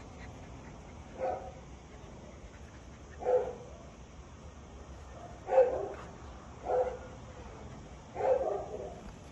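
A dog barking five times, short single barks one to two seconds apart.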